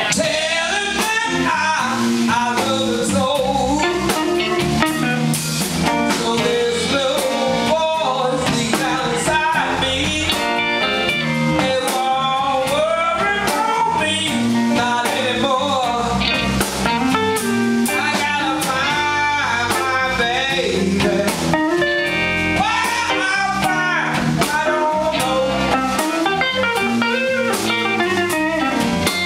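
Live blues band playing: electric guitars with bending, wavering notes over bass and drums, and a woman's voice in the mix.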